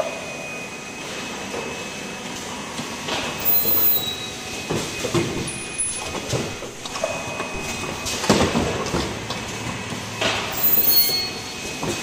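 Automated cup-mask production line running: a steady high whine under irregular bursts of mechanical clatter and noisy air-like bursts from its conveyors, gantry arms and pneumatic cylinders.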